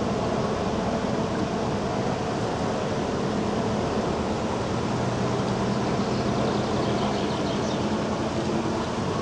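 Motor cruisers' engines running at low speed as the boats move out of a lock: a steady, even engine hum.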